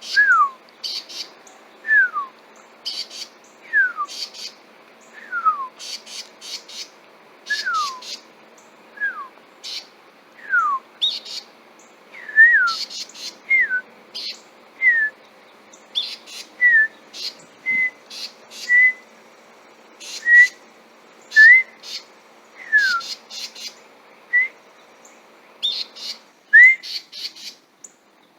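A bird calling without pause: a long series of whistled notes about a second apart, at first sliding downward, later shorter notes at a higher pitch, mixed with sharp high notes. The calls are insistent, which the narrator takes for the bird scolding intruders near its territory.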